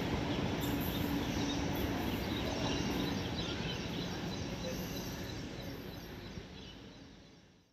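Rumble of an electric passenger train running on the track as it moves away, fading steadily and dying out at the end.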